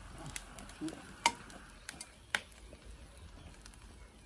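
Sharp cracks and pops from a freshly lit wood fire in a brick fireplace, two loud ones about a second and two seconds in among fainter ticks. The owner takes the cracking for bricks splitting under the heat.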